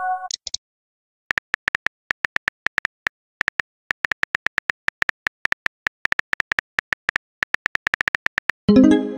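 Phone keyboard clicks from a texting-story animation as a message is typed, a quick run of short ticks at about five or six a second that pauses briefly near the start. Near the end comes a short pitched chime as the message is sent.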